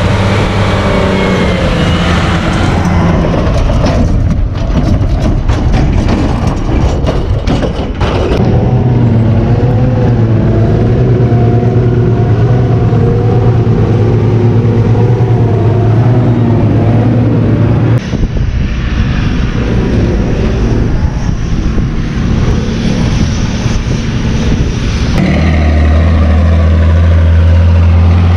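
Diesel engines of silage machinery running steadily: a Fiat 110-90 tractor hauling a silage trailer and a John Deere 6950 forage harvester, heard in several short shots. Near the end the Fiat's engine drones louder as it drives up close.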